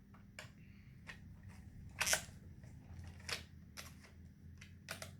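Plastic clicks and taps of a Minnie Mouse Picture Perfect toy camera being handled, about eight in all and spread unevenly, the loudest about two seconds in.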